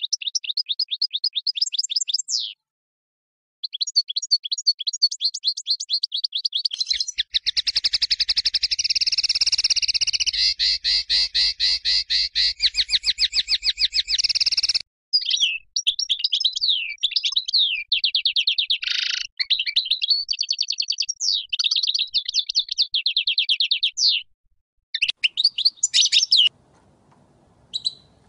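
European goldfinch of the large 'Major' race singing: fast runs of repeated high chirps and trills. There is a short pause about three seconds in and a denser, buzzier stretch in the middle, and the song stops shortly before the end.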